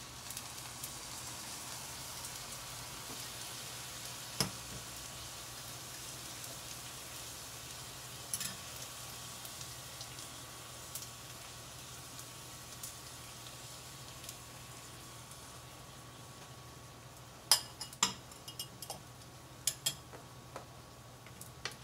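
Faint steady sizzling hiss from a pot of spaghetti, salmon and cream heating on a gas stove. A few sharp clinks of dishes come near the end.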